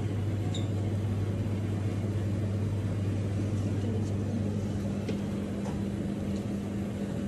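Steady low machine hum from a refrigerated shop display case. About five seconds in, the deep hum gives way to a slightly higher one. A few faint clicks sound over it.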